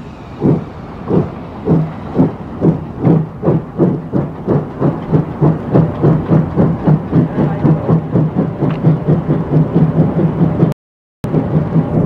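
Steam locomotive exhausting hard as it pulls away, the chuffs quickening from about two to about four a second. The sound cuts out completely for about half a second near the end.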